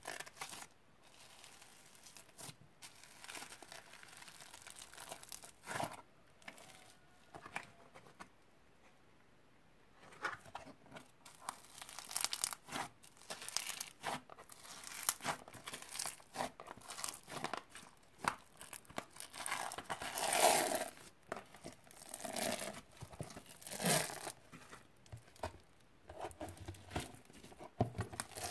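Hands squeezing and kneading foamy slime: a stream of wet crackles and small pops. It goes quieter for a couple of seconds about eight seconds in, then comes back denser and louder.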